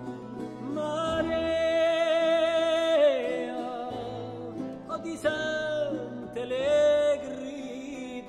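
A song: a singer holds long notes with vibrato, in three phrases, over instrumental accompaniment.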